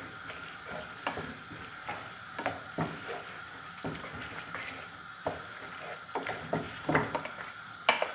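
Wooden spoon stirring and tossing linguine in a non-stick frying pan, a run of irregular light scrapes and knocks against the pan about one or two a second, as the pasta is coated in the egg-and-cheese cream off the heat.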